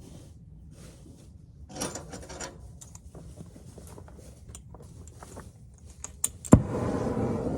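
Oxy-acetylene cutting torch being lit: light metallic clicks and rattles of the torch and hoses being handled, then a couple of sharp clicks and a loud pop as the gas ignites near the end, followed by the steady rushing hiss of the burning flame.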